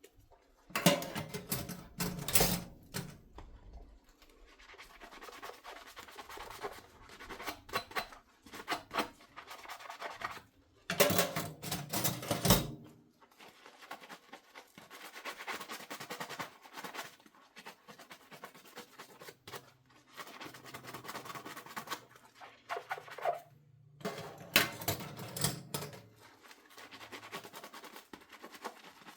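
Dishes being washed by hand in a sink: a sponge scrubbing and rubbing, with small clicks and scrapes throughout. Three louder stretches of a second or two come near the start, in the middle and near the end.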